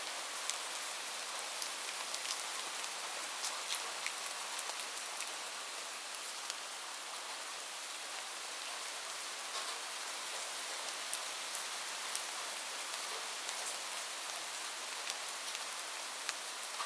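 Steady rain falling, an even hiss with many separate drops ticking sharply on a hard surface.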